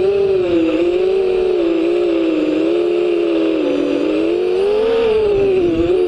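FPV quadcopter's electric motors and propellers whining. The pitch rises and falls as the throttle changes, dipping about two-thirds of the way in and then climbing again, with a steady rush of air underneath.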